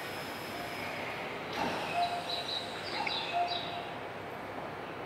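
Steady hiss of platform ambience around a stationary electric commuter train, the Keisei 3000 series. A faint high whine fades out about a second in. After that come a few short high chirps and brief tones.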